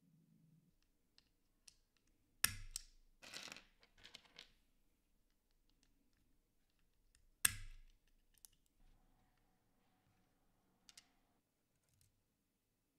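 Cherry MX Black Hyperglide switches being popped open with a metal switch opener: two sharp snaps about five seconds apart, with a light clatter of small plastic switch parts after the first. A few faint ticks near the end.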